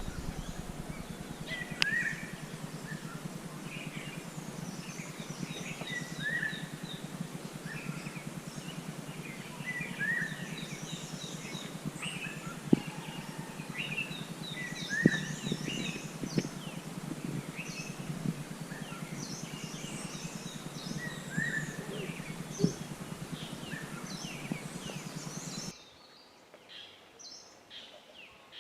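Several wild birds calling and singing over a steady low background noise. One repeats a short down-slurred whistle every few seconds, another gives quick runs of high notes, and there are scattered high chirps. Near the end the background noise cuts out suddenly, leaving only faint calls.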